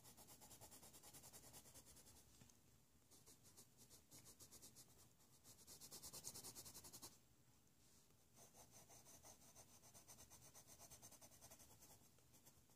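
Faint scratching of a Faber-Castell Polychromo coloured pencil shading across a paper page in quick, short back-and-forth strokes, with two brief pauses.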